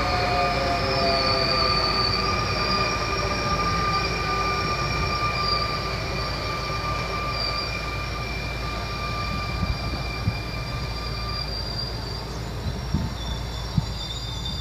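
A double-deck TER 2N NG electric multiple unit running slowly along the track, with a low rumble and a steady high whine at several pitches. The whine stops about two-thirds of the way through, and a few faint clicks follow near the end.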